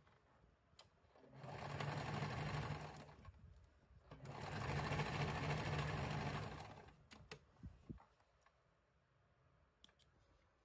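Electric sewing machine stitching through satin in two runs of about two seconds each, with a short pause between. A few light clicks follow near the end as the work is pulled out from under the needle.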